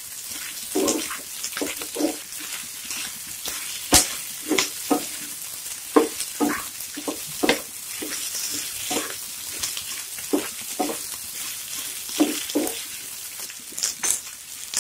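Beef, onion and capsicum sizzling over high heat in a frying pan, stirred with a wooden spatula that scrapes and knocks against the pan again and again, with one sharp knock about four seconds in.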